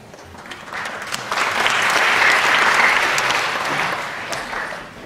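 Audience applauding, building about a second in and dying away near the end.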